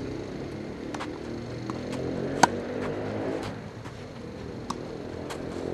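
Tennis balls knocking sharply now and then, the loudest about two and a half seconds in, over faint background music that fades out about halfway through.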